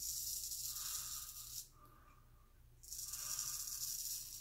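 Gold Monkey straight razor scraping through lathered beard stubble with a dry, rasping hiss, in two long sweeping strokes with a pause of about a second between them.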